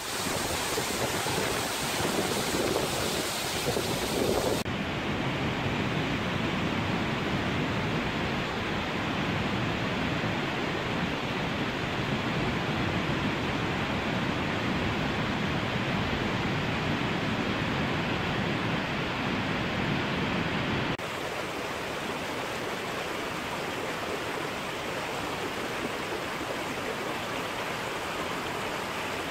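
Steady rushing roar of a waterfall, at first the spray of Staubbach Falls with wind buffeting the microphone. About five seconds in the sound turns abruptly duller, and it turns brighter again about two-thirds of the way through.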